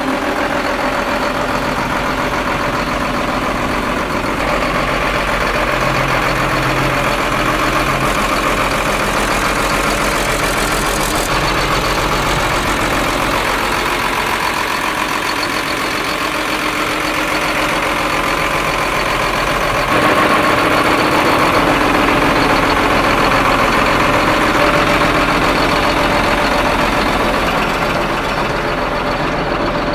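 Case STX 380HD articulated tractor's 380-hp turbocharged diesel engine running steadily at idle, with a couple of abrupt jumps in level.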